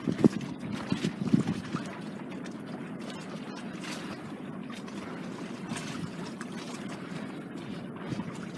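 Water rushing along the hull of a small sailboat under sail at a few knots, a steady wash of noise. A few irregular low thumps come in the first second and a half.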